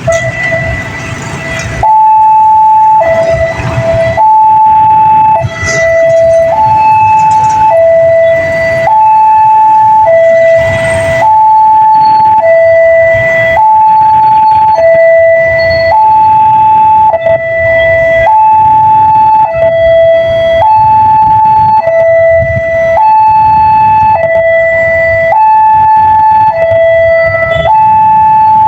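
Railway level-crossing warning siren sounding two tones in a steady hi-lo alternation, each tone held a little over a second, starting about two seconds in over road traffic.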